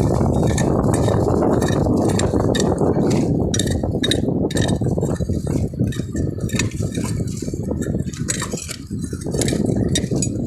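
Shells clinking and rattling against each other in repeated sharp clicks, over a steady low rumble that eases off about halfway through.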